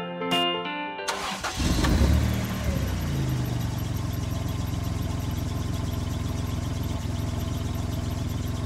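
Plucked, music-box-like music stops about a second in, and a vehicle engine sound effect starts up, then idles steadily with a fast, even pulse.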